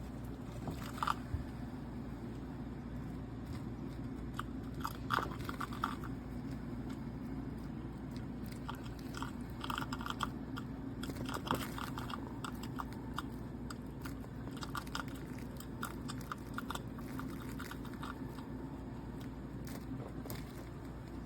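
Drip coffee maker brewing: a steady low hum with irregular crackling, popping and gurgling, a few louder pops about a second, five seconds and eleven seconds in.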